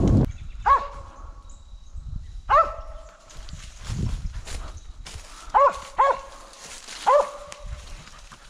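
A squirrel dog barking five times in short, spaced barks, about one every second or two, barking at a treed squirrel.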